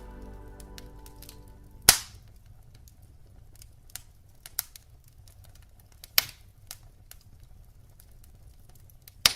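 Wood fire in a fireplace crackling, with scattered sharp pops, the loudest about two seconds in and another near the end. The last clarinet note dies away during the first two seconds.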